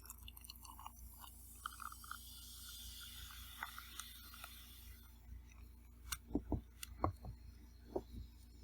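Close-up chewing of a mouthful of food, with soft wet mouth noises and small clicks, then a few sharp clicks and knocks over the last few seconds.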